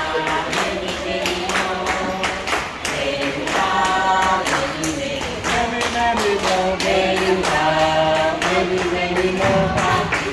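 A group of voices singing a birthday song together in held notes, with steady hand-clapping keeping the beat.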